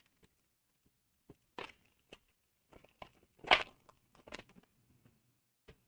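A foil trading-card pack wrapper crinkling and being torn open by hand, in short scattered bursts, the loudest about three and a half seconds in.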